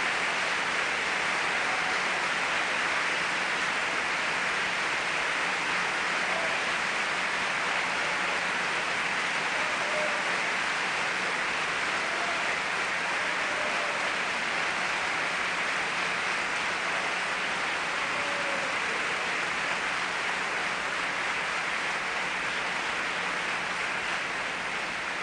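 A large theatre audience applauding steadily, easing off slightly near the end.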